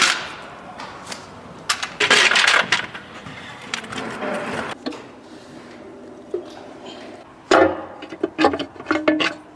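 Hand tools and metal engine parts clinking and knocking during engine disassembly, with a short rasping burst about two seconds in and another cluster of clicks near the end.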